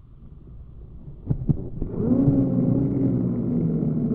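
Abu Garcia Ambassadeur 1500C baitcasting reel: two quick clicks, then from about two seconds in the reel's spool and gears running with a steady low hum.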